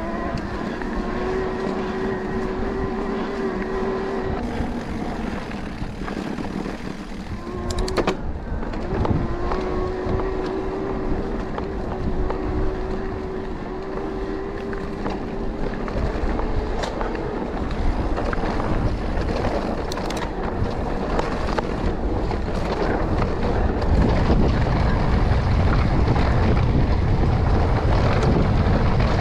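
Specialized Turbo Levo electric mountain bike riding a dirt singletrack. A thin, steady mid-drive motor whine comes and goes over tyre and frame rattle noise. There is a sharp knock about eight seconds in, and wind rushes over the helmet-cam microphone, growing louder toward the end.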